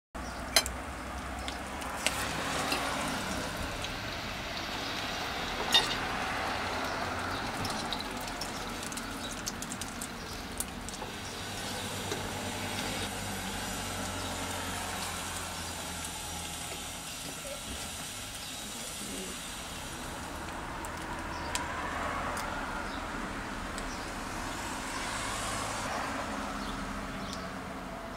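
Egg-dipped bread frying in hot oil in a pan, a steady sizzle that swells and eases a few times, over a low steady hum. A few sharp clicks stand out, the loudest about two seconds in and about six seconds in.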